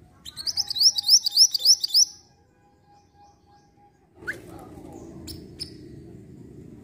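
Minivet (mantenan) singing: a rapid series of about ten sharp, high whistled notes lasting about two seconds. A few short chirps follow a couple of seconds later.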